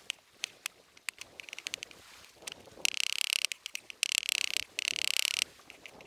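Kitchen knife cutting garlic cloves on a wooden cutting board: scattered sharp taps, then from about three seconds in three quick runs of rapid chopping strokes as the garlic is minced, stopping about half a second before the end.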